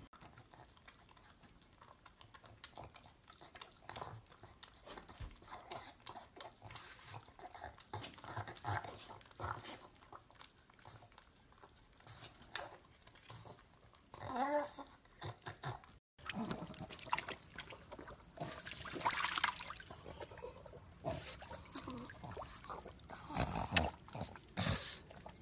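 A pug licking at the mouth of a glass bottle: a quick run of small wet licking clicks. After a cut about 16 seconds in, louder, noisier sounds from a pug wading through shallow water.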